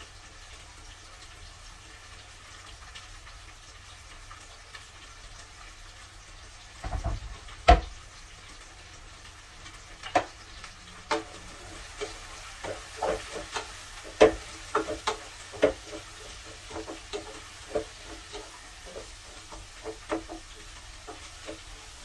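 Onion and eggplant frying in oil in a pan with a steady faint sizzle. From about seven seconds in, a cooking utensil knocks and scrapes against the pan again and again as the food is stirred, with two knocks louder than the rest.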